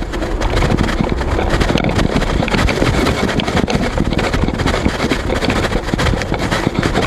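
Steady rumbling and crackling noise on the action camera's own microphone, with many small clicks, as the camera on its broken mount rubs and knocks against whatever it rests on.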